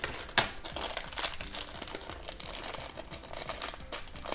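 Thin clear plastic bag crinkling and crackling as fingers handle it and pull it open to get a small figurine out, with a sharper snap about half a second in.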